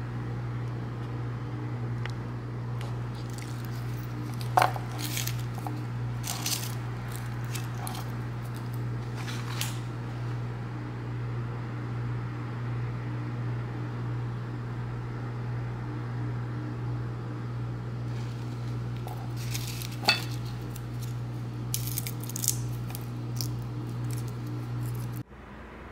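Occasional light clinks of dishes and utensils over a steady low hum, the hum cutting off abruptly near the end.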